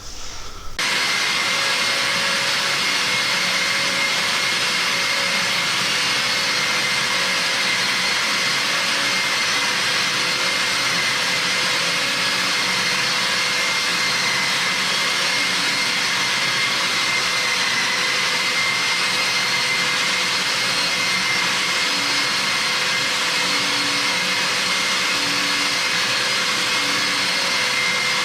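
Rokamat Heron long-neck wall and ceiling sander running with a dust-extraction vacuum connected: a steady rushing noise with a steady high tone, starting suddenly less than a second in.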